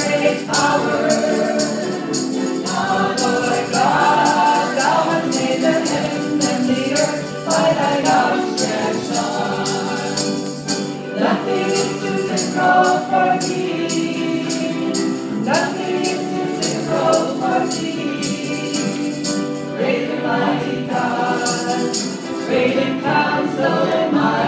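A gospel praise song performed live: several voices singing together over piano, with a steady jingling tambourine beat and clapping hands.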